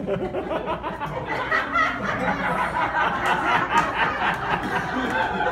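An audience laughing and chattering, many voices over one another.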